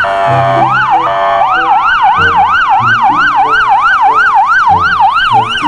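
Electronic police-car siren, a fast up-and-down wail about three cycles a second, with a slower sweeping tone under it early on and a simple electronic tune of short low notes beneath.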